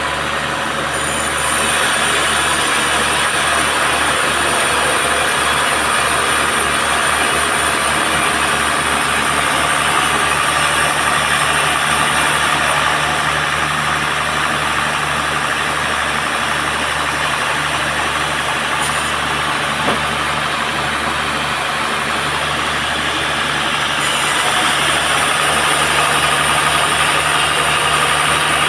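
Band sawmill running steadily and sawing a teak log, a steady machine drone under a dense cutting hiss, growing slightly louder about a second and a half in.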